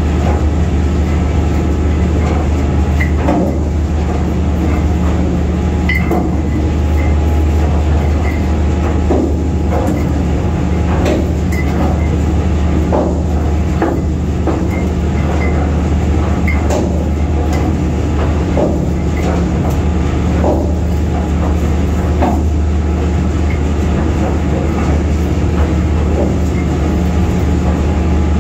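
Heavy steel anchor chain clanking as it comes down into the chain locker while the anchor is heaved up, links knocking against one another in irregular clanks with small metallic pings, over a steady low machinery hum.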